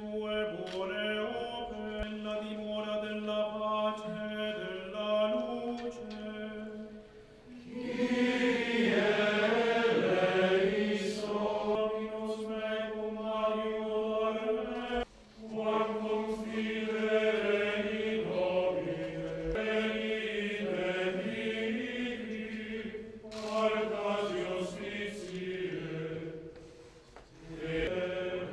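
A group of voices singing a slow liturgical chant, holding long notes, with a short break about halfway through.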